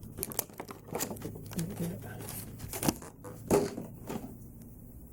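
Plastic toy packaging being handled: crinkling and sharp little clicks and knocks as a small plastic action-figure sword is worked free, dying away about four seconds in.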